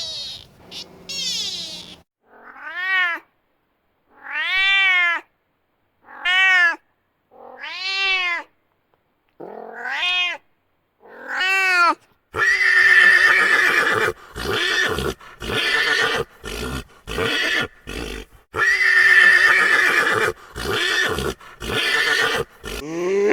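Animal calls: about six separate cries, each rising and then falling in pitch, followed by a denser, rougher run of calling in the second half.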